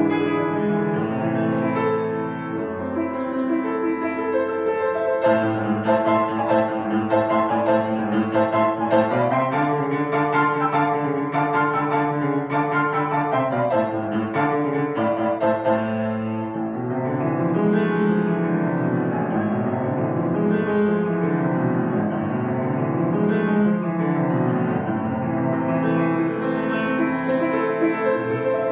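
Solo piano playing dense chords and quick repeated notes over held bass notes. A little past halfway, the playing turns to sweeping runs up and down the keyboard.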